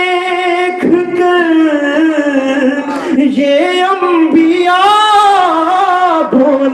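A man singing a line of a salaam in melodic recitation, drawing out the words in long held notes that bend and waver, with brief breaks for breath.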